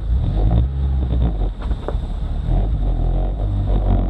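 Jeep engine running at low speed as the Jeep rolls along a dirt track, a steady low rumble heard from the open cab.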